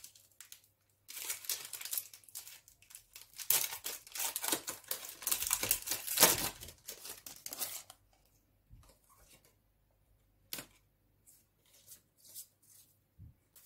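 A Pokémon booster pack's foil wrapper being crinkled and torn open by hand, a dense crackling for several seconds. After about eight seconds in it gives way to faint light rustles and clicks as the cards inside are handled.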